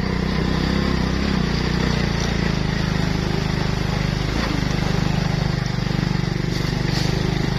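Motorbike engine running steadily at an even speed while riding along a dirt track.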